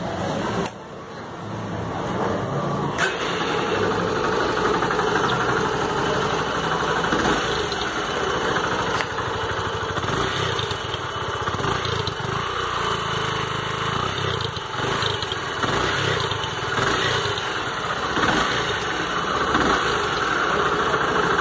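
Yamaha Factor motorcycle's single-cylinder four-stroke engine started up and running at idle, its exhaust note heard through a 2–3 cm washer fitted into the muffler tip to muffle it toward a deeper 'coiote' sound. The engine starts about a second in and then runs steadily.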